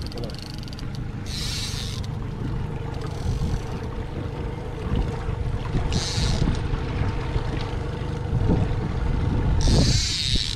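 A boat's outboard motor runs steadily under heavy wind and water rumble, broken by several short bursts of hiss.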